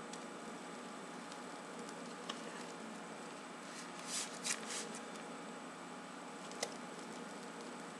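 Piping bag of whipped cream being squeezed: faint rustling and squishing of the bag, with a few soft crinkles about four seconds in and a single click later, over a steady low hiss.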